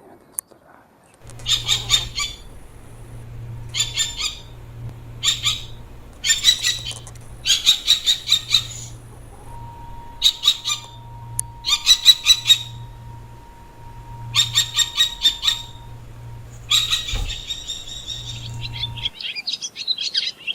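A bird calling in repeated short phrases of rapid high notes, about ten phrases roughly a second apart, over a steady low hum that stops near the end.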